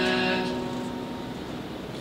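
The last held chord of a slow sung ballad dying away in about a second, leaving a faint steady hiss.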